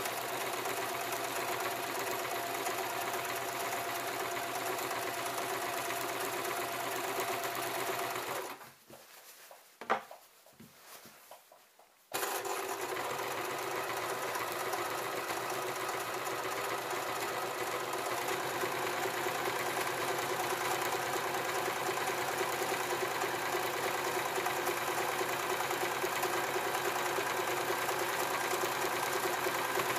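Domestic electric sewing machine running steadily, stitching through hammock fabric. It stops about eight seconds in, a single sharp click comes in the short pause, and it starts again abruptly about four seconds later and runs on.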